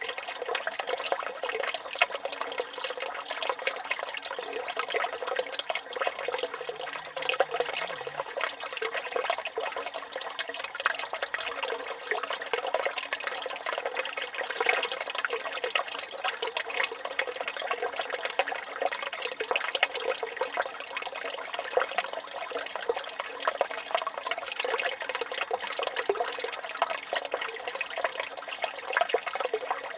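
Water from a village fountain running and splashing steadily, with no pause or change.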